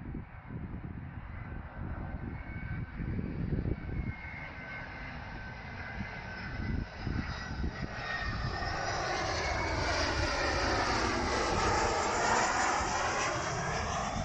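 Boeing 737 freighter on its landing approach: a faint steady jet whine at first that swells steadily over the last several seconds as the plane draws near, turning into a loud sweeping, phasing jet noise. A low rumble runs underneath.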